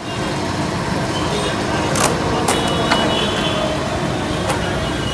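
Steady rushing road noise from a moving vehicle in town traffic, with a few sharp clicks or knocks about two, two and a half, three and four and a half seconds in.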